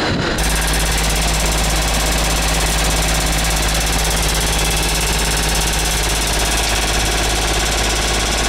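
Vibrating sand screen at a rotary sand dryer plant running with a steady low drone while dried sand pours onto its deck.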